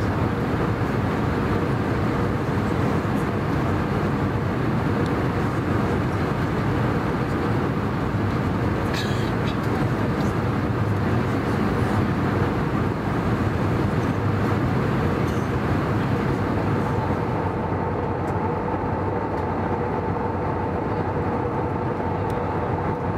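Steady cabin noise of an Airbus A320 in cruise: the rush of airflow and engine drone, with a faint steady hum. About seventeen seconds in the hiss turns duller and the hum sits higher.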